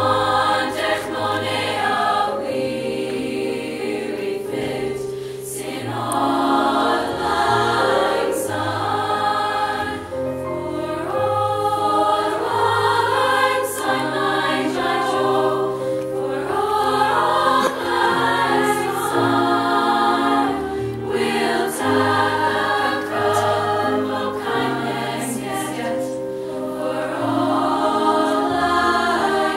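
High school choir of mostly young women's voices singing a song together.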